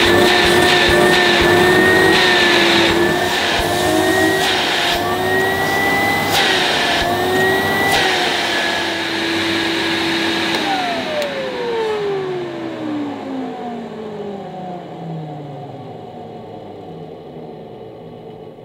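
1980s Hoover Compact Deluxe 800 cylinder vacuum cleaner running, a little bit grumbly, its pitch wavering up and down. About ten seconds in it is switched off and the motor winds down with a falling whine that fades over several seconds.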